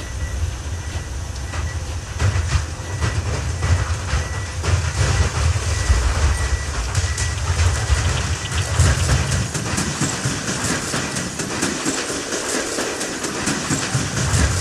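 Field recording of heavy machinery: a deep mechanical rumble with dense rattling clicks over it and a thin steady high tone. Near the end the rumble drops away while the rattling goes on.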